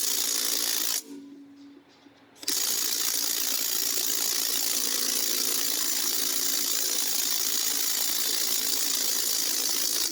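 Cordless impact driver hammering on a seized lawnmower blade bolt soaked in penetrating oil. There is a short burst of about a second, then a long steady run from about two and a half seconds in, each starting and stopping abruptly.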